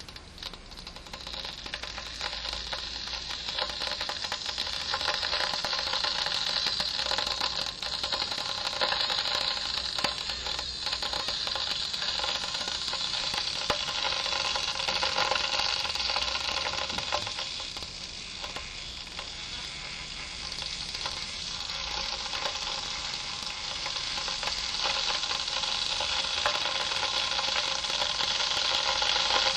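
Kettle heating water: a steady hiss with fine crackling that builds over the first few seconds, eases off a little about two-thirds of the way through, then grows again.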